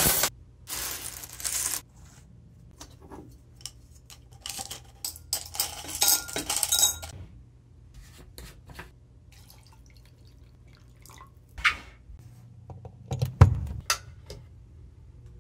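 Copper pennies pouring out of a glass jar and clinking as they spill across a concrete floor. This is followed by scattered clinks and clicks of glassware and a plastic bottle being handled, and a single thump about thirteen seconds in.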